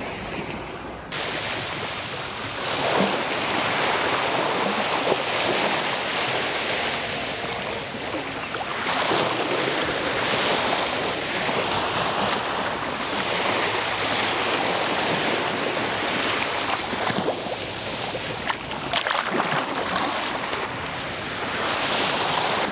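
Small Gulf surf waves breaking and washing up the sand, with wind on the microphone; the wash rises and falls every few seconds.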